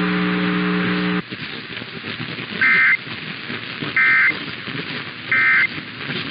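Three short bursts of EAS end-of-message data tones (the SAME 'NNNN' code), each a brief two-tone warble, about 1.3 s apart, marking the close of the alert. They follow a steady low buzzing hum that cuts off about a second in, with faint hiss underneath.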